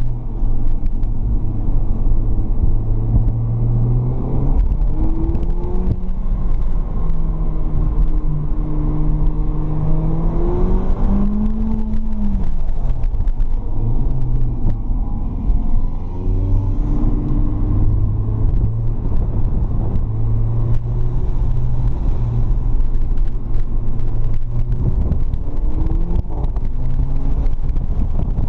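Mercedes-AMG CLA45's turbocharged 2.0-litre four-cylinder engine heard from inside the cabin while driven hard, its pitch rising under acceleration and falling off again several times over a steady low drone.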